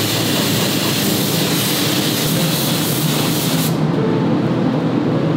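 Spray gun hissing as it sprays finish onto a wooden cuckoo clock case, cutting off suddenly a little over halfway through. A steady low hum runs underneath.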